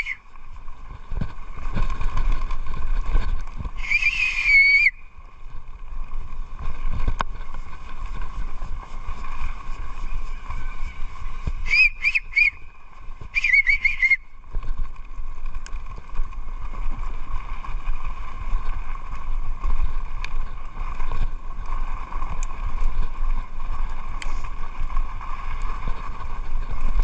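Mountain bike rolling fast over a dirt trail, with steady tyre and trail rumble and wind on the microphone. The disc brakes squeal in short wavering bursts, once about four seconds in and twice around twelve to fourteen seconds in, on a bike with a leaking brake.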